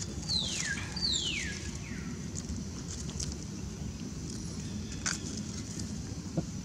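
Animal calls: two high calls about a second apart, each sliding steeply down in pitch, then a fainter third. Under them runs a steady low background rumble, with a few light crackles of dry leaves later on.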